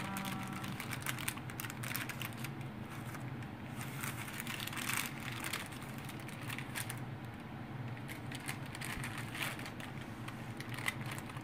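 Baking paper rustling and crinkling in irregular bursts as it is lifted to roll up a sponge cake, over a steady low hum.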